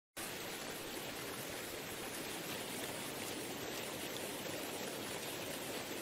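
Waterfall and river rapids: a steady, even rush of water cascading over a cliff and tumbling across shallow rocks.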